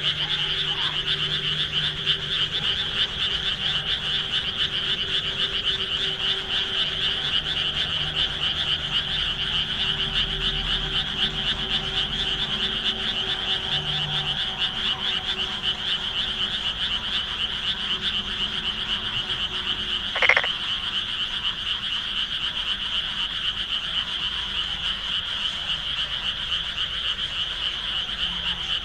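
A dense chorus of many frogs calling together, a continuous fast-pulsing trill with no break. A faint steady low hum lies under the first half, and a brief louder sound cuts in once about twenty seconds in.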